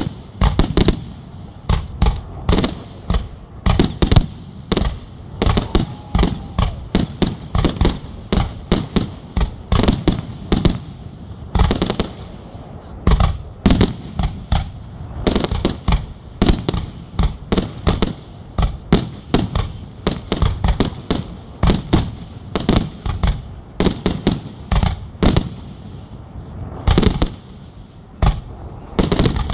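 Aerial firework shells launching and bursting in quick succession: an unbroken series of sharp bangs, about two to three a second.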